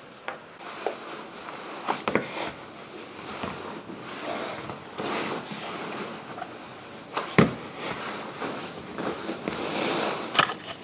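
Clothing rustling as a person gets dressed and pulls on sneakers, with a few sharp knocks and thumps; the loudest comes about seven seconds in.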